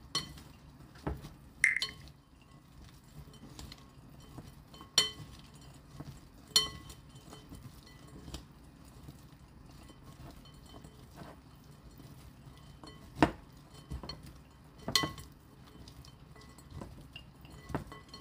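Glass mixing bowl clinking and ringing as dried filefish strips are tossed with mayonnaise by hand. There are about ten sharp knocks, spread unevenly.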